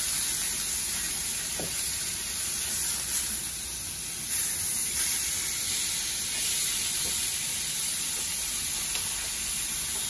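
Pollock fillets sizzling steadily in a hot ridged grill pan.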